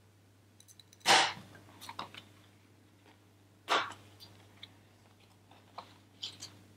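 Rayher handheld hole-punch pliers punching two holes through a laminated paper card: two sharp snaps about two and a half seconds apart, with lighter clicks of the punch and rustling of the card between and after.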